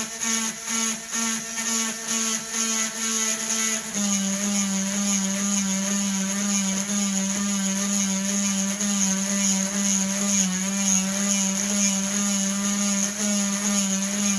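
Dremel rotary tool with a diamond bit drilling dry into a stone in quick, repeated jabs: a steady motor whine that pulses about twice a second. About four seconds in it drops slightly in pitch and runs more evenly under load.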